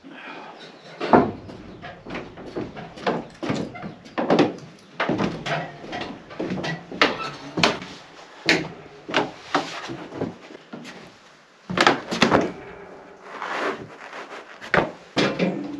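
Irregular wooden knocks, bumps and clatters, over a dozen of them at uneven spacing, some much sharper than others, as timber is handled and knocked about during repair work on a wooden hut.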